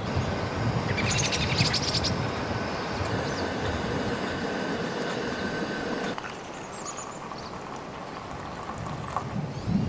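Stovetop percolator brewing coffee: a steady rushing noise with a low hum. About six seconds in this gives way to a quieter stretch of coffee pouring into an enamel mug, with a few bird chirps.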